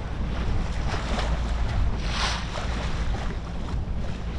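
Wind buffeting the microphone over the wash of choppy sea water around a boat, with a short rushing splash about two seconds in.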